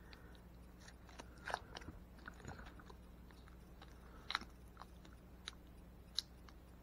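Faint, scattered clicks and crinkles of plastic toy packaging being worked at by hand while someone tries to get a frozen slime pack open, with a few sharper ticks.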